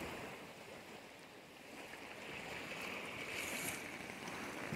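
Faint steady wash of distant surf, with a brief soft rustle about three and a half seconds in.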